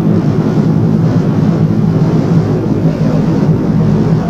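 The Chili River in flood, its muddy floodwater rushing in a steady, loud low rumble.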